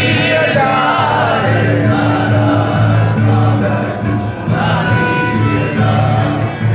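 Live male singing amplified through a PA system, with acoustic guitar accompaniment, loud and continuous.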